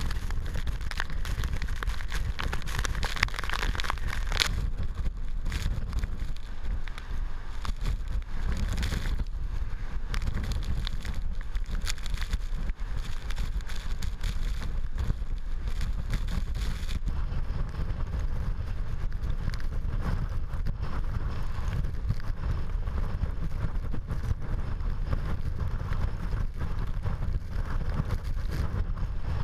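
Typhoon eyewall wind and heavy rain: a steady low rumble of gusts buffeting the microphone under a continuous hiss of driving rain.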